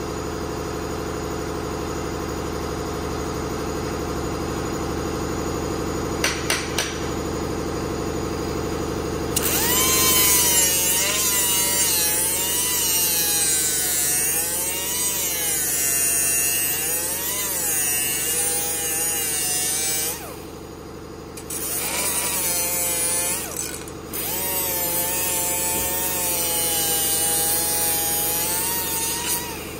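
Small handheld disc grinder grinding weld seams flush on a steel headlight bucket. It starts about nine seconds in after a steady background hum and a few clicks, and its whine rises and falls in pitch as it is pressed on and eased off. It stops briefly about two-thirds of the way through.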